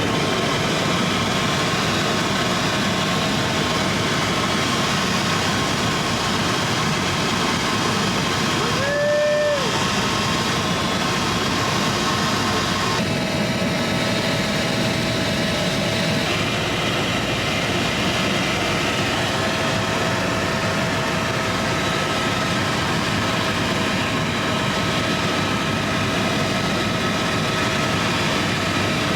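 Helicopter engine and rotor running steadily. A short tone rises, holds and drops away about nine seconds in.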